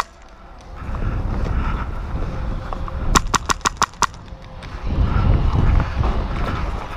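An airsoft rifle fires a short full-auto burst of about six shots, roughly seven a second, about three seconds in. Around it are low thudding and rustling from a player moving on foot.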